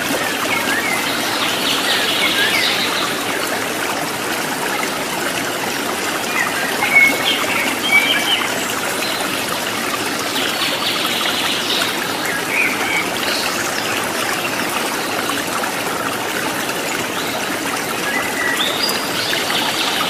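Stream flowing with a steady babble, with birds chirping now and then above it in short scattered calls.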